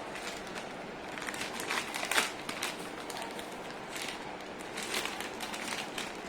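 Packaging being handled: rustling and crinkling with scattered small clicks and taps, in two busier stretches.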